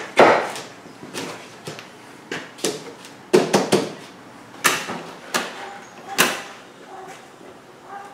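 Irregular clunks and knocks of plastic front-bumper parts on a Toyota RAV4 being handled and fitted into place, about ten in all, the sharpest clustered in the middle.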